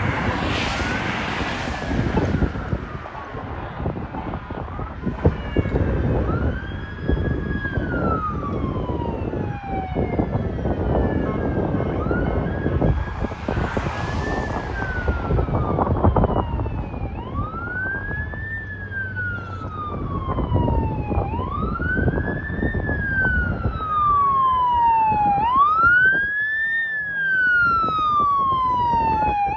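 Fire engine's wail siren, slow rising and falling sweeps that grow louder as it approaches, over the noise of passing road traffic.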